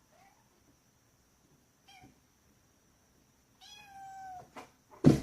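A domestic cat meowing: two faint short meows, then a longer, clearer meow about two-thirds of the way through. Near the end comes a loud thump.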